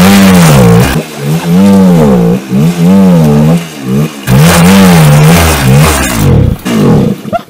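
Voskhod 3M motorcycle's single-cylinder two-stroke engine revving up and down over and over as the bike is pushed through deep water. The revs and loudness fall away near the end.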